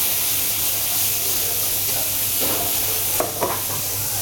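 Veal, onions and peppers sizzling in a hot frying pan as they are tossed and stirred with a wooden spatula. A few clatters of the spatula on the pan come about three seconds in.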